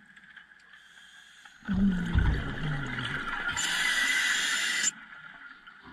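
Scuba diver's breath through the regulator underwater: a loud rush of exhaled bubbles with a low, falling rumble for about three seconds, joined by a sharp hiss near the end, then cutting off suddenly.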